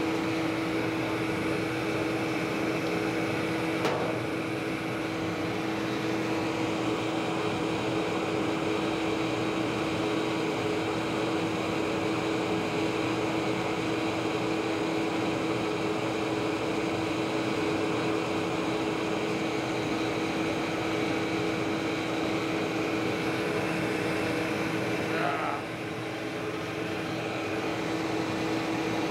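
Steady hum of a motor-driven fan with a couple of constant tones in it, and a single clink about four seconds in as a glowing bar of 1080 steel is quenched in a square steel tube. A brief short sound comes near the end.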